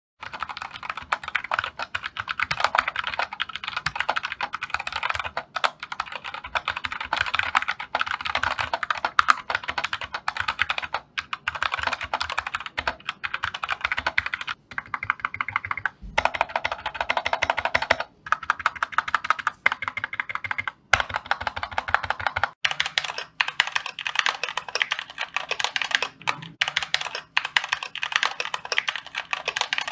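Computer keyboards being typed on in quick, continuous keystrokes. Short breaks split the typing into stretches, and the tone of the clicking changes between them as one keyboard follows another.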